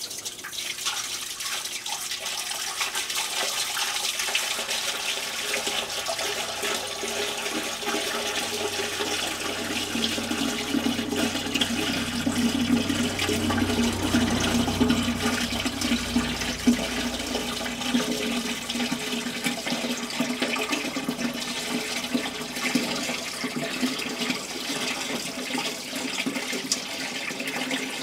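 Water-mixed machine coolant pouring from a five-gallon plastic bucket through a flexible funnel into a band saw's coolant reservoir: a steady splashing pour that turns deeper and fuller for several seconds midway.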